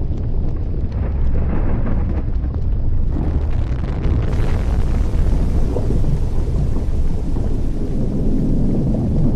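Erupting volcano: a steady, loud low rumble with a rushing hiss and scattered crackles, the hiss growing brighter about three to four seconds in.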